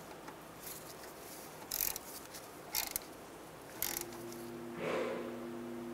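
Socket ratchet tightening the small ABS sensor bolt on a steering knuckle: a few short ratchet clicks about a second apart. About four seconds in, a steady low hum comes in.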